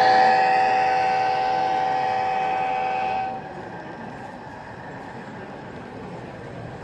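Horn of a sound-equipped model Amtrak locomotive: one long steady blast of several notes together that cuts off about three seconds in.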